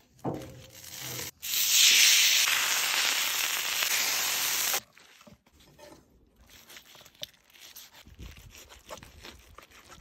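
Tomahawk steak sizzling on a hot grill grate, a loud even hiss lasting about three seconds that cuts off suddenly. Then faint scrapes and taps of a knife working the steak on a wooden cutting board.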